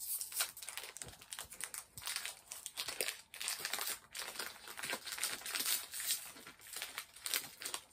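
Foil wrapper of a Pokémon TCG Scarlet & Violet Paldea Evolved booster pack crinkling steadily in the hands as it is worked open, a dense run of small irregular crackles.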